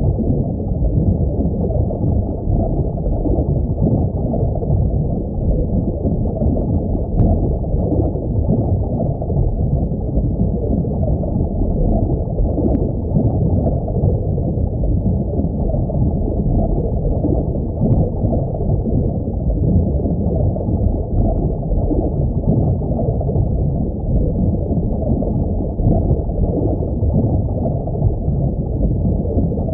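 Steady low rumble of aquarium water with gurgling, with a few faint ticks.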